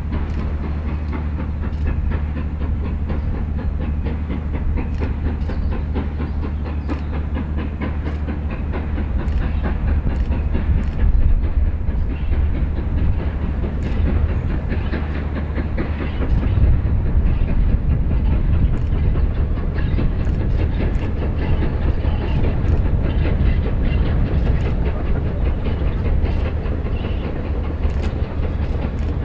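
GWR King class four-cylinder 4-6-0 steam locomotive No. 6023 'King Edward II' working a train of coaches away from a station: a steady run of exhaust beats and train rumble, growing somewhat louder about halfway through.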